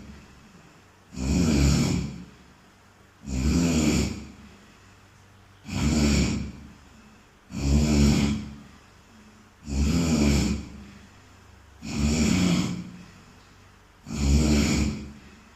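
A sleeping person snoring, one snore about every two seconds, each lasting about a second, with quiet between; seven snores in a row.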